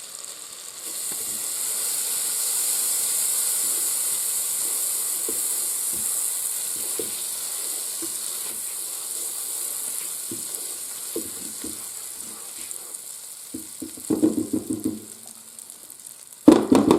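Butter sizzling as it melts in the hot pot of a Cosori multicooker on browning mode; the hiss starts about a second in and slowly dies down. Light knocks run through it, with a couple of louder clatters near the end.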